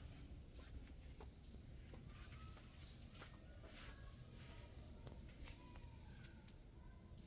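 Near quiet, with a faint steady high-pitched insect trill and a few soft clicks.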